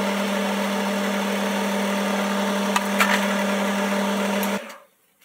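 Metal lathe running steadily under its electric motor, a constant hum with a few faint clicks near three seconds in, while a bar end is faced and centre-drilled. It starts and cuts off abruptly about four and a half seconds in.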